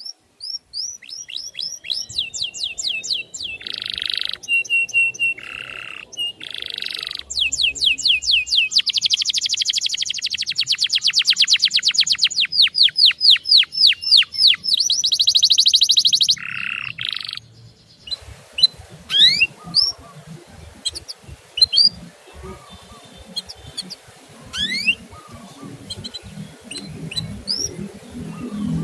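Small songbird singing fast series of high chirps and rapid trills, with short loud bursts in between. About 18 seconds in, the song changes to sparse single rising chirps over faint background noise.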